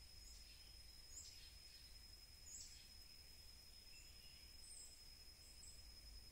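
Near silence: faint outdoor ambience with several short, high bird chirps that sweep downward, over a steady high-pitched insect drone.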